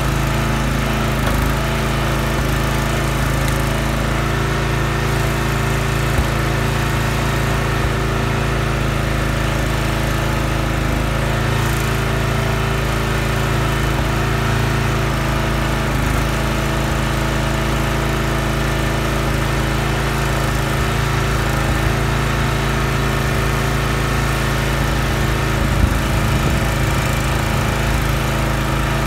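Huskee gas log splitter's small engine running steadily as rounds are split, with one short knock near the end.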